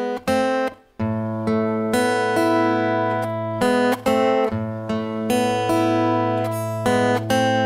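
Acoustic guitar fingerpicked slowly over an A chord: a few short plucked notes, then from about a second in a low open A bass note ringing under single treble notes picked about twice a second.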